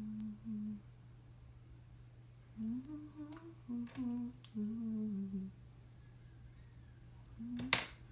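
A woman humming a tune softly to herself in short phrases. A single sharp click comes near the end.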